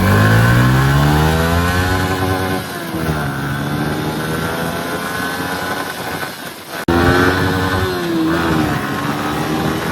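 Yamaha R15 V3's stock exhaust on its 155 cc single-cylinder engine, accelerating on the move: the note rises for a couple of seconds, drops and climbs again, sags about six and a half seconds in, then picks up after a sharp click. Wind blast on the microphone runs under it.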